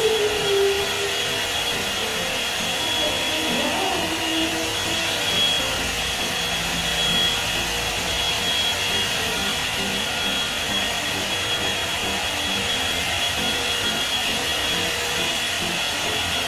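Hot-air volumizer brush hair dryer running steadily on its high setting: a constant rush of air with a thin high whine, switched off near the end.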